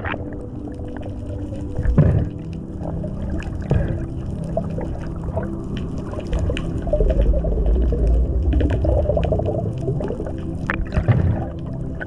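Muffled underwater sound picked up by a diver's camera: water rushing and bubbling, with many sharp clicks and a few louder surges, over a steady low drone.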